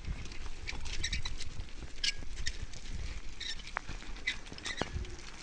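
A hand-pulled stone roller rolling over a wet mud-and-straw surface, packing it down, with a low, uneven rumble. Short high squeaks come through it every fraction of a second.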